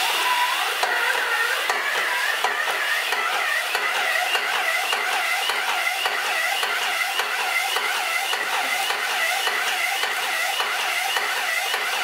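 ASPRO 6000 airless sprayer spraying thinned putty through a large 39 tip: a steady, loud spray hiss with a faint regular pulsing from the pump's strokes.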